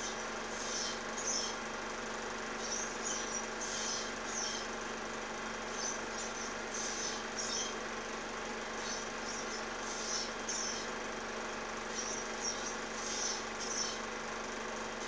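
Ospreys calling: series of short, high-pitched chirping whistles, coming in quick clusters with brief gaps between them, over a steady hum and hiss.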